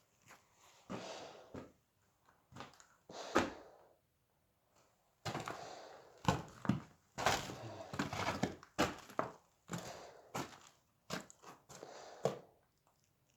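Plaster being broken off a stone chimney: irregular knocks and thuds with crumbling bursts, pausing for about a second partway through.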